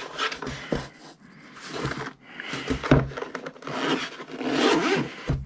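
Hands handling the grey fabric-covered hard-shell DJI Mavic Mini carrying case on a wooden desk: irregular scraping and rubbing of fabric against wood, with a few small knocks.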